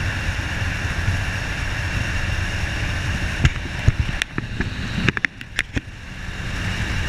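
Wind and road noise on a motorcyclist's microphone, a steady rush with a low rumble. After about three and a half seconds several sharp clicks and knocks come in while the rush drops away, and near the end the noise builds again.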